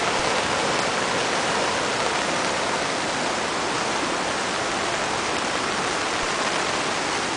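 Creek in flood after heavy rain, its muddy water rushing past in a steady, even wash of noise.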